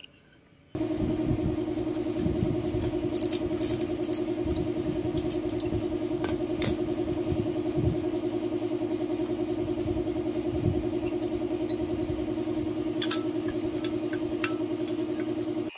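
A steady mechanical hum that starts suddenly about a second in and holds one pitch, with scattered metallic clinks and light knocks from a hand wrench working the engine-mount bolt of a scooter engine.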